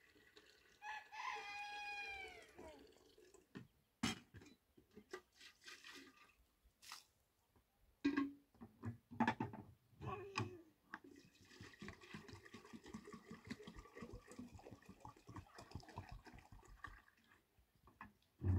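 A rooster crows once, one long call about a second in that falls away at the end, followed by scattered short knocks and clicks.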